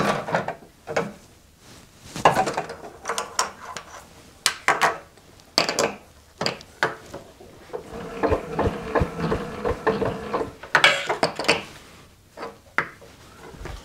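Metal clinks, knocks and scraping as a drill chuck on its arbor is handled and fitted up into a milling machine's spindle, with a steadier rubbing stretch a little past the middle.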